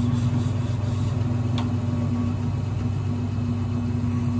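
Steady low machine hum, engine- or motor-like and unchanging, with a single faint click about a second and a half in.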